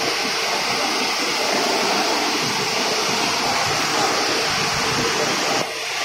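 Steady rushing machinery noise of a running rubber extrusion and microwave vulcanization line. A little before the end, the sound changes abruptly and the high hiss drops away.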